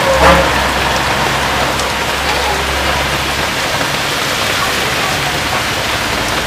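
Heavy rain pouring onto a wet road, a steady dense hiss, with traffic driving through it. A vehicle engine rumbles low under the rain for the first half, and there is a brief louder burst just after the start.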